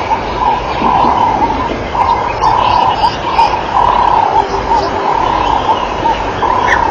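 Birds calling in the bush: a call at a clear middle pitch repeated over and over, with a few short high chirps, over a steady hiss.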